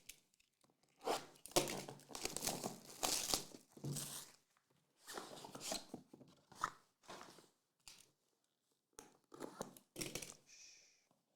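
Packaging of a trading card pack being torn open and crinkled, in a run of irregular tearing and rustling bursts.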